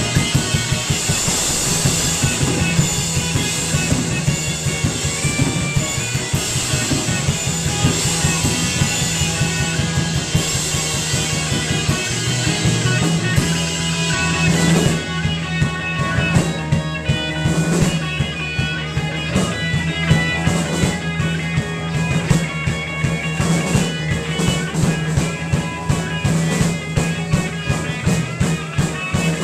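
Live rock band playing electric guitars and a drum kit. A dense high cymbal wash fills the first half, then thins out about halfway through, leaving sharper separate drum hits under the guitars.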